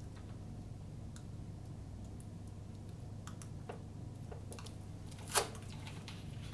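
Small plastic clicks and taps from handling an engine-oil bottle while oil is poured into a lawn mower's oil filler neck, with one sharper click about five seconds in, over a steady low hum.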